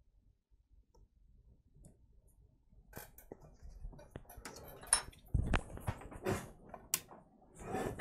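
Small hand tools clicking and knocking on a workbench: a scattered run of sharp clicks and a few duller knocks, starting about three seconds in.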